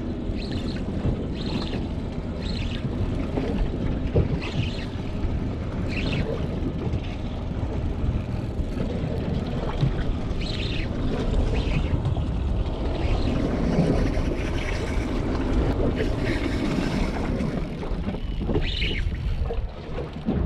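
Wind buffeting the microphone on a small open boat, with water lapping against the hull in short splashes every second or few.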